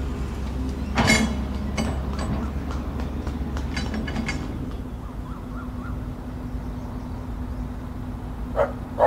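Tracked excavator's diesel engine running steadily, with several clanks from the machine in the first half. Near the end a dog barks twice.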